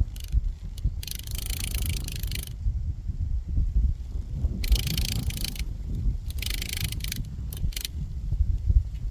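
Dry oak leaf rattling in the wind, like a maraca, in three dry rustling bursts of a second or so each, with a few short clicks near the end. A low wind rumble on the microphone lies under it.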